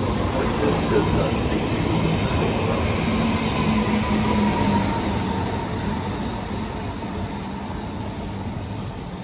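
Double-deck Intercity 2 electric train (Stadler KISS) passing close by: a steady rush of wheels on rail with a faint motor hum and whine, which slowly fades over the last few seconds.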